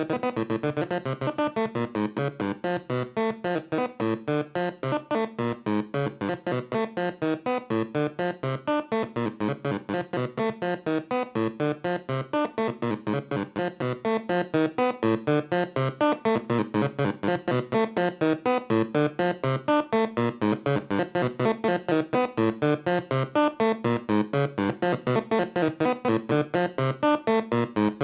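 Behringer Crave analog synthesizer playing a fast sequenced pattern of short, plucky notes in A minor, about four to five notes a second, dry with no effects. The pattern gets a little louder about halfway through.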